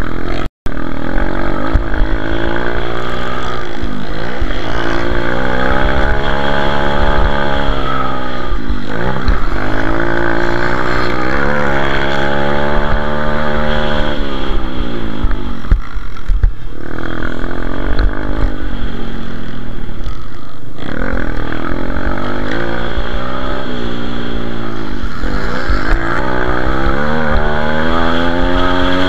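A racing pit bike's single-cylinder four-stroke engine at high revs, heard from on board. The pitch climbs and falls again and again as the rider accelerates through the gears, shifts, and backs off for turns and jumps.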